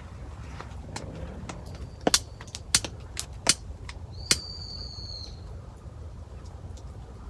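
A few sharp knocks or clacks, spaced well under a second apart, over a steady low rumble. The last knock is followed by a thin high ringing tone lasting about a second.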